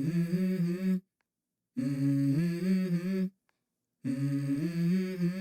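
A voice humming "mm-hmm" three times as the intro of a pop-rap song, each hum about a second and a half long with a sliding pitch, with a silent gap between hums.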